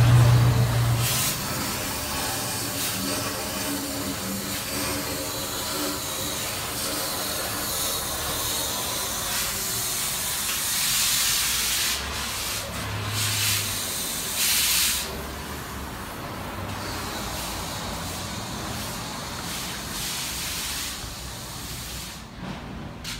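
Steady hissing and rushing shop noise around a truck being worked on for an exhaust job, with louder stretches of hiss about halfway through and again a little later. An engine's low running note is loud for the first second, then fades.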